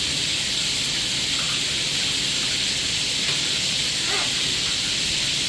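Steady hiss of water running into a bathtub where a macaw is bathing, with a faint brief pitched sound about four seconds in.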